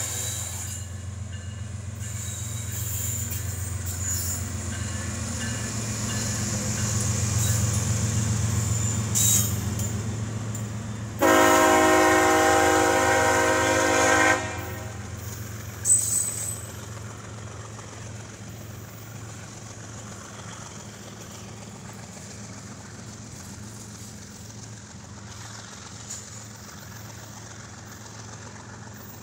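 CSX freight train passing: the diesel locomotives' engines rumble by and fade, then one long horn blast of about three seconds sounds about eleven seconds in. After it the freight cars roll past steadily, with a brief clank a few seconds after the horn.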